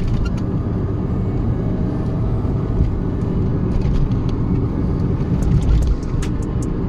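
W124 Mercedes-Benz being driven, with a steady low engine and road rumble. The automatic gearbox shifts without a clunk, now that the differential mounting bushings have been replaced.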